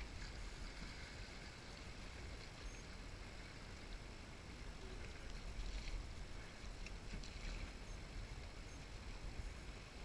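Steady wash of fast river current running past a drift boat, with a low rumble underneath and a few faint clicks about halfway through.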